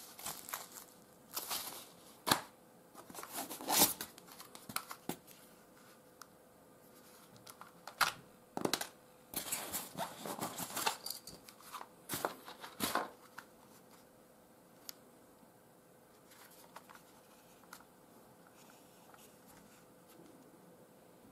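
Unboxing handling noise: plastic-wrapped papers rustling and crinkling and a spring airsoft pistol being lifted from its styrofoam packing tray, in irregular bursts for the first dozen seconds, then only a few faint handling clicks.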